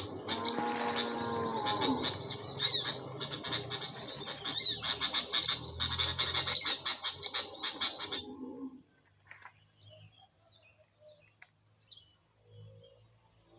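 Birds chirping and trilling rapidly and densely, with a lower descending squawk early on. The calls stop suddenly about eight seconds in, leaving only faint scattered chirps.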